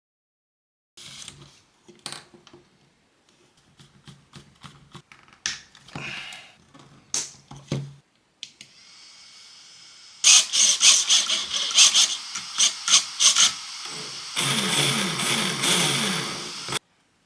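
Small workshop tool sounds while working on an RC car: scattered clicks and parts being handled, then a run of sharp rapid clicks, and near the end a small power tool or motor runs for about two seconds, its pitch wavering, before cutting off suddenly.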